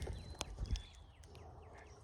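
Brown-headed cowbirds calling at a bird feeder: thin, high whistled notes and short falling chirps, with a sharp click and a few low knocks partway through.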